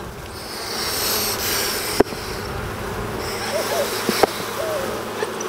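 Honeybees humming over an open hive frame, with two stretches of hissing as an Apisolis vapor smoker puffs vapor onto them. Two sharp clicks come about two and four seconds in.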